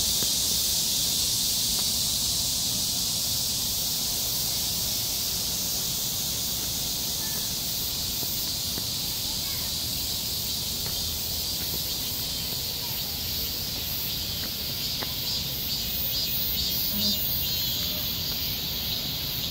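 Insects singing in a steady, high-pitched chorus, with a fast pulsing creeping into it in the second half.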